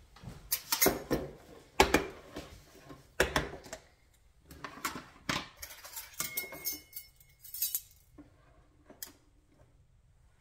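Metal measuring spoons clinking and clattering against a glass dish and the countertop while butter is measured out: a quick run of sharp knocks and jingles that stops about eight seconds in, with one more click shortly after.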